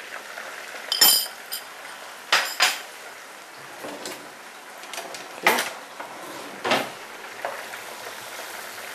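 Kitchen utensil clatter: a series of sharp clinks and knocks from a metal teaspoon, a small bowl and a kitchen drawer, the loudest clink about a second in. Beneath it is the faint steady sizzle of chopped onions frying in oil in a wok.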